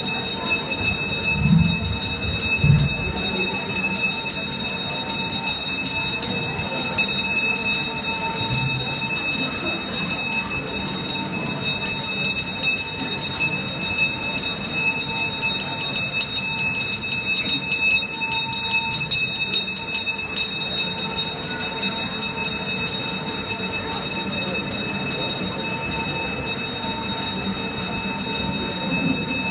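Metal ritual bells ringing without a break in a fast, dense jangle on steady, ringing tones, growing a little louder in the middle.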